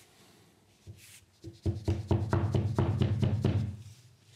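A rod ramming plastic-bound bengal fire composition down into a cardboard tube, compacting the charge: a quick run of knocks that starts about a second and a half in and lasts about two seconds.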